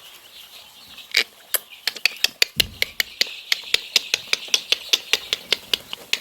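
Week-old chicks cheeping, with a quick run of sharp taps or clicks, about four to five a second, starting about a second in.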